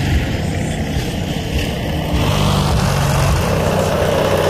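Vehicle engine running at a steady cruise with road noise. A rushing noise swells about halfway through and holds.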